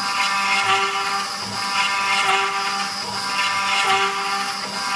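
Homemade CNC router's 500 W spindle whining steadily as its 2 mm two-flute bit cuts into a wooden board, the whine swelling and easing about every one and a half seconds as the machine runs short repeated passes, with a brief motor tone in each pass.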